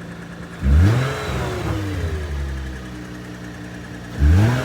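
Lexus IS350's V6 engine idling, revved twice: a quick throttle blip about a second in that rises and settles back, and a second one near the end.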